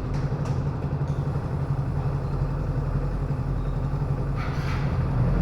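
Motorcycle engine idling with a steady low drone, a couple of faint clicks near the start and a short hiss about four and a half seconds in.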